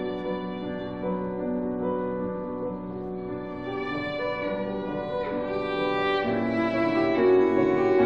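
Cello and grand piano playing together: long bowed cello notes over piano accompaniment, growing louder near the end.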